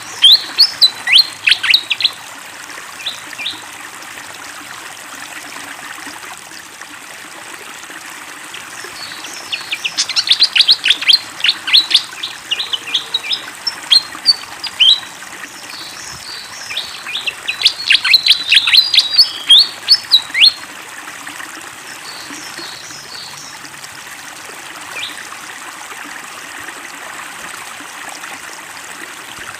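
Malaysian pied fantail singing in several bursts of quick, sharp chirping notes with pauses between. A steady sound of flowing water runs underneath.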